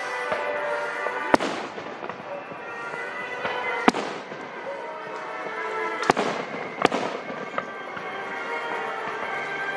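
Aerial fireworks shells bursting in four sharp bangs, the first three about two and a half seconds apart and the last two close together, with fainter pops between. Music with sustained tones plays underneath.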